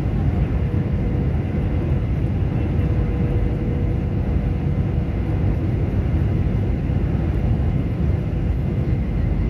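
Steady cabin noise of a jet airliner in flight: a deep, even rumble of engines and airflow, with a faint steady whine running through it.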